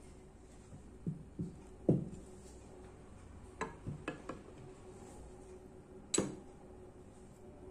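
Ceramic plates and a drinking glass being set down on a cloth-covered table. There are a few dull knocks in the first two seconds, the loudest at about two seconds, then a quick cluster of light clicks around four seconds, and a sharper clink with a short ring about six seconds in as the glass goes down.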